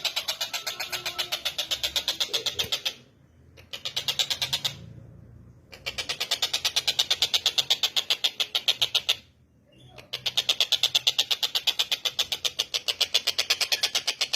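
Tengkek buto, a kingfisher, calling in a rapid rattling chatter of about ten sharp notes a second, which breaks off twice briefly before starting up again.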